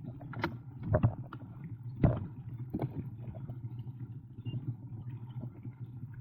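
Boat motor running low with a steady hum, broken by four sharp knocks in the first three seconds, the loudest about two seconds in.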